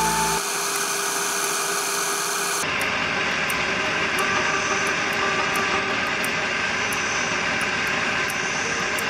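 Wire brush wheel spinning on a wood lathe, scouring the surface of a locust-wood goblet pressed against it: a steady rushing noise.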